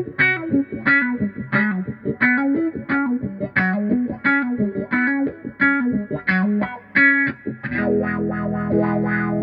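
Electric guitar playing a picked riff of quick single notes through a Vox 846 Hand Wired wah pedal, settling into a held, ringing chord near the end.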